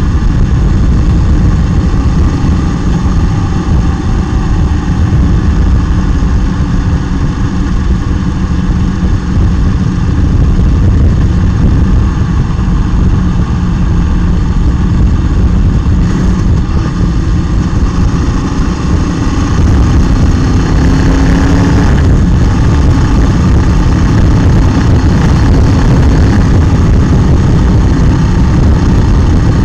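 Wind rushing over a motorcycle-mounted camera while riding, with the motorcycle's engine running underneath. The sound grows louder about two-thirds of the way through.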